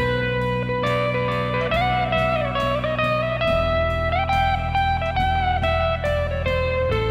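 Background music: a guitar melody with sliding notes over a steady bass line.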